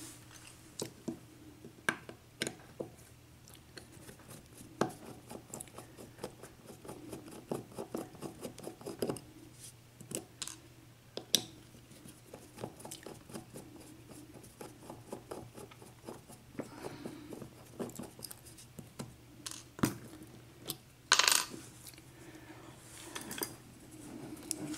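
Small metallic clicks and clinks from a Dorma 7-pin mortise lock cylinder being handled and taken apart, with a louder metallic scrape-and-rattle a few seconds before the end.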